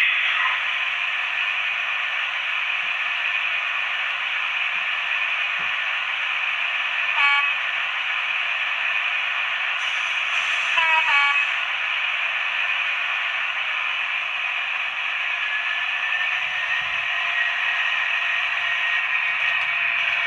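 Sound-fitted (DCC) model diesel train playing a steady recorded diesel engine note through its small onboard speaker. Two short horn sounds come about 7 and 11 seconds in, and the engine note rises about 15 seconds in as the train starts to move off.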